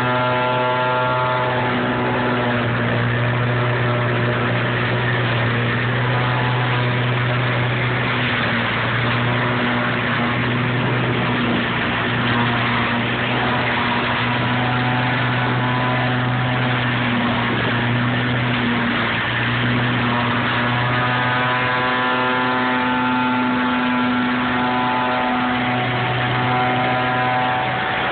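Engine-driven trailer leaf vacuum running steadily while leaves are fed into its wide intake hose: a constant deep hum under a higher fan whine. The whine is buried in a noisy rush for much of the middle and comes back clear in the last third.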